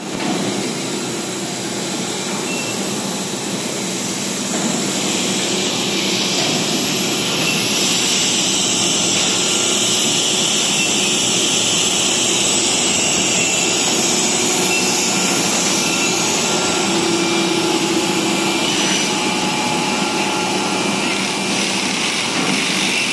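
Steady hiss and hum of a running PVC profile extrusion line: conical twin-screw extruder, die and vacuum calibration and cooling table at work. It grows a little louder and more hissy about five seconds in.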